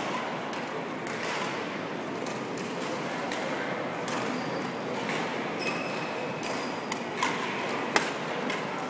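Badminton rackets striking shuttlecocks across a large sports hall: sharp pops one after another over a steady background of hall noise. The loudest pop, about eight seconds in, is a shot struck close by.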